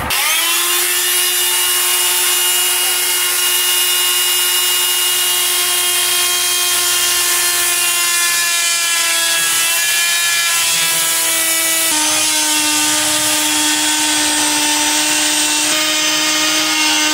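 A corded power tool cutting into plywood wall board, with a canister vacuum cleaner drawing off the dust at the cut. The motors spin up at the start and then run with a steady whine that dips slightly in pitch about twelve seconds in.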